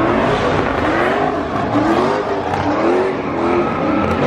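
Car engine revving up and down in repeated surges, about once a second, as a sedan spins donuts, over a steady hiss of spinning tyres.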